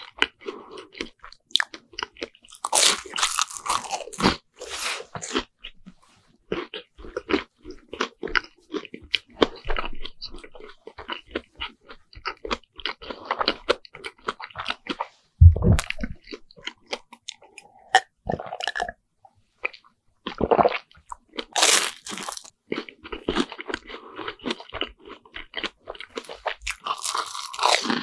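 Close-miked chewing of a deep-fried sandwich bread, the crisp fried crust crunching and crackling between wetter chewing and mouth sounds. A single low thump about halfway through is the loudest moment.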